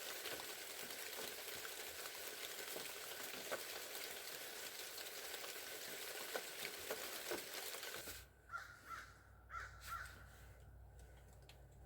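Freezing rain and sleet falling: a steady hiss peppered with small ticks. About eight seconds in it gives way to a quieter scene where crows caw several times.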